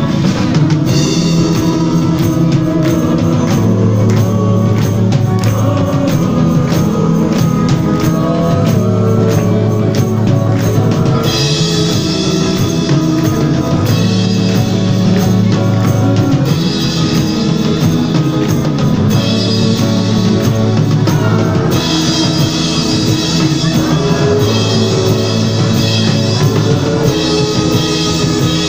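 Live band music played over a PA: acoustic guitar, bass and a drum kit keeping a steady beat, with a sung vocal at times. The cymbals come in brighter about a third of the way in.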